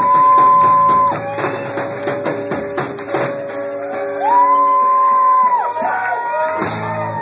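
Live rock band playing the last bars of a song: drum and cymbal hits under long held high notes, the song's closing section.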